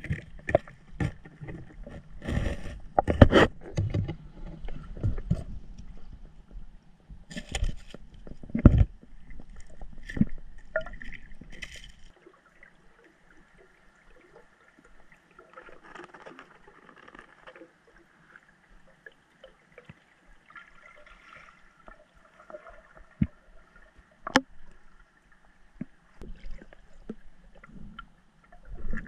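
Lake water sloshing and splashing, with loud irregular bumps and knocks for the first part. About twelve seconds in it turns much quieter to faint gurgling, with one sharp click later on.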